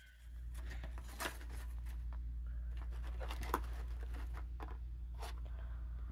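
Scattered light rustles and small clicks of things being handled, over a steady low rumble.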